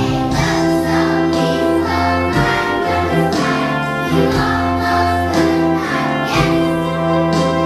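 Song playing with children singing along, sustained melody notes over a steady accompaniment.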